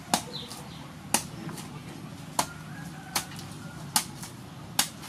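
Cleaver chopping into the husk of a green coconut on a wooden board, six sharp strikes about one every 0.8 seconds. Chickens cluck faintly in the background.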